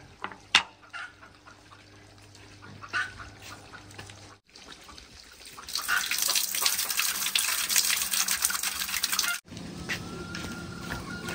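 A few light clicks of river pebbles being set in place. About five and a half seconds in, water starts to run loudly and steadily from a pipe onto the pebbles, then cuts off suddenly.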